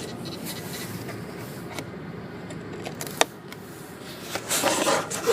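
Steady low road rumble inside a moving car, with a few sharp clicks and light rattles; the noise grows louder and busier in the last second.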